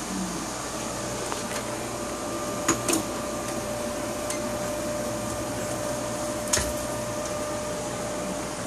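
A steady mechanical whir with a faint steady tone, broken by a few sharp knocks and clicks, about two and a half, three and six and a half seconds in, as a desktop PC case is handled.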